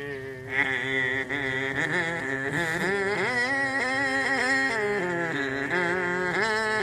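Voices imitating bagpipes: a steady drone held underneath a chanted melody line that carries the words, the melody chopped into quick pulses by a hand striking the throat.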